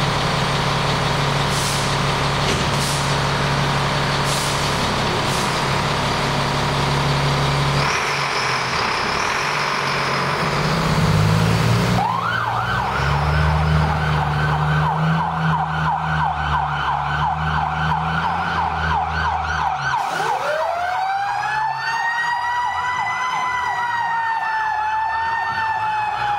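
Fire engine's engine running, then its electronic siren starts a fast yelp about twelve seconds in as the truck pulls out. Around twenty seconds in, a second siren winds up into a long wail that rises and then slowly falls over the yelp.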